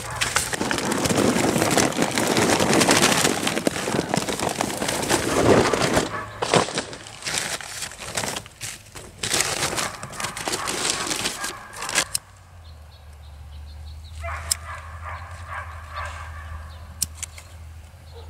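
Charcoal briquettes clattering out of a paper bag and newspaper being crumpled and rustled, a loud dense rattle and rustle for about twelve seconds. Then it stops suddenly, leaving a low steady hum and a few sharp clicks.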